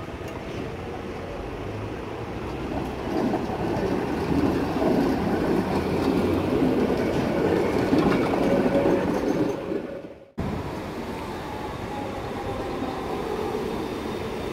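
Tatra T3 tram running along street track, its rumble swelling as it comes up and passes close by. After a sudden cut near the end, a second tram is heard rolling by.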